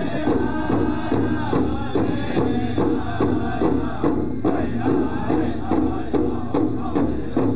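Powwow drum group playing: a steady beat of about three strokes a second on a large shared drum, under group singing in a high, sliding chant.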